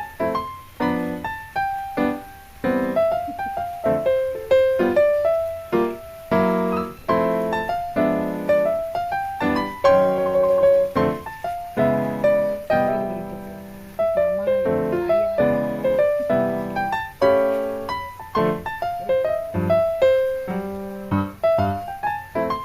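Solo piano music: a melody with chords, notes struck and fading in a flowing rhythm.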